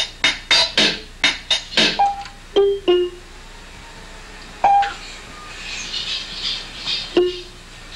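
Casio electronic keyboard: a steady beat of about three strokes a second stops about two seconds in, then single notes are pressed one at a time by a toddler, a few seconds apart.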